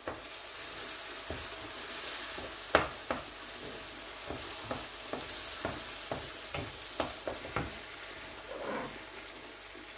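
Tomato, green pepper and egg mixture sizzling in a frying pan while a wooden spoon stirs the eggs in, the spoon knocking lightly against the pan again and again.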